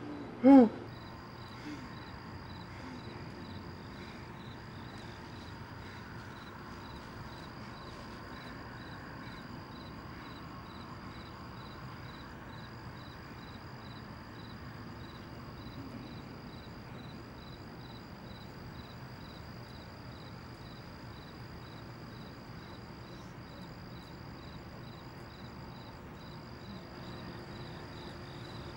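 A man's brief strained vocal sound right at the start. Then crickets chirp steadily, about two chirps a second, over a continuous high insect trill.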